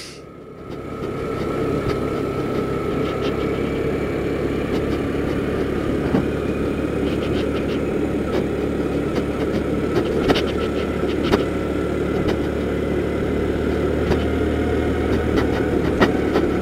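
Kymco Super 8 150 scooter's single-cylinder four-stroke engine running steadily under way. It grows louder about a second in and then holds, with a few light knocks.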